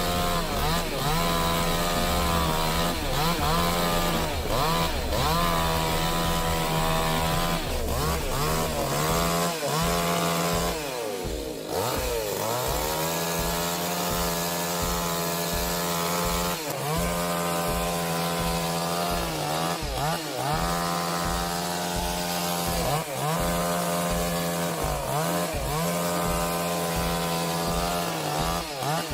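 Chainsaw cutting into wood, its engine note repeatedly dropping as the chain bogs in the cut and then revving back up, over and over.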